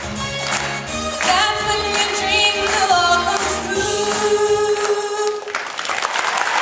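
A girl singing into a microphone with musical accompaniment, finishing on a long held note that ends about five and a half seconds in; applause starts as it ends.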